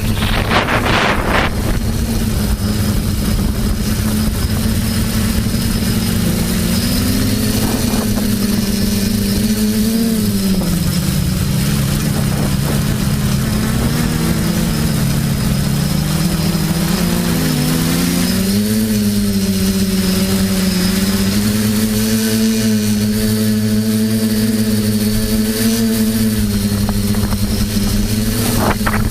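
TBS Discovery quadcopter's brushless electric motors and propellers running in flight, a steady buzzing hum whose pitch dips and rises again several times as the throttle changes. A brief rush of noise about a second in.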